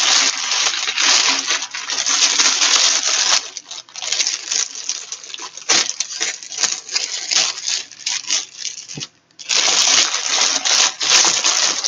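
Plastic packaging crinkling and rustling in long, dense stretches as wrapping is pulled off a new hoverboard. It stops briefly about nine seconds in.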